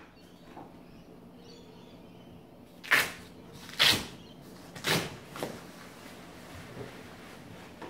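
A portable cot's fabric carry bag being opened and pulled off the folded cot: three short, loud rustling scrapes about a second apart, from about three seconds in, with a smaller one just after. A faint steady hum sits underneath.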